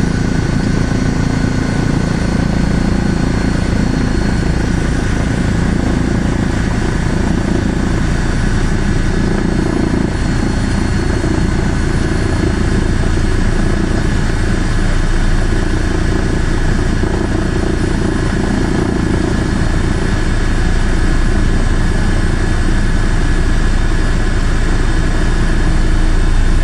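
Steady drone of an aircraft's engine and propeller or rotor, heard from on board.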